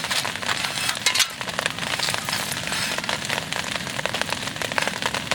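Heavy rain falling steadily, a dense, irregular patter of drops striking a surface close by.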